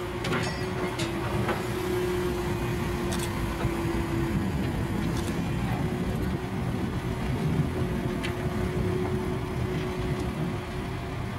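An engine running steadily, a low rumble with a held hum over it, with a few sharp clicks and knocks scattered through.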